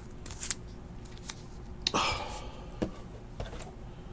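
Trading cards and a cardboard hobby box being handled on a table mat: a few light clicks and taps, with a short rustling slide about two seconds in.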